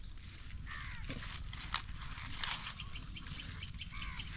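Birds calling: a run of short, evenly spaced high chirps, about four a second, from about halfway in, with two falling calls and a few sharp clicks over a steady low rumble.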